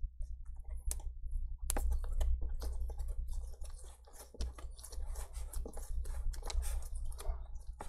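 A small hand tool scratching and clicking at the edge of a laptop's screen panel, picking at the adhesive tape holding the screen in. A single click about a second in, then a long run of quick, irregular scrapes and ticks.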